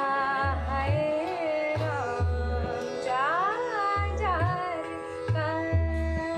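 Background music in an Indian classical style: a melody with sliding, gliding notes over low bass notes that recur every second or so.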